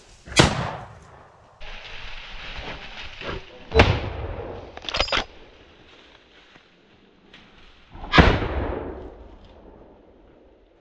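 Hunting rifle shots: three loud shots, each trailing off in a long echo, about half a second in, near four seconds in and about eight seconds in. A shorter, sharper double crack comes about five seconds in.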